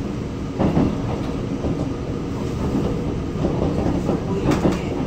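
Running noise heard from inside a Korail 331000-series electric multiple unit with IGBT VVVF traction. The wheels clack over rail joints, with louder knocks about half a second in and near the end.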